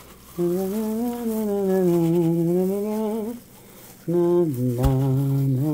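A man humming a tune in two long, drawn-out phrases that rise and fall slowly in pitch, the second lower than the first, with a short knock about five seconds in.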